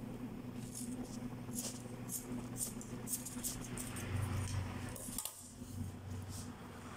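Scissors snipping and working through a paper ribbon, a run of short crisp snips, over a steady low hum.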